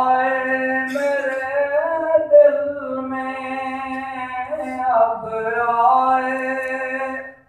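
A man singing a naat, an Urdu devotional poem, unaccompanied into a microphone, in long held lines with gliding pitch; his voice stops just before the end.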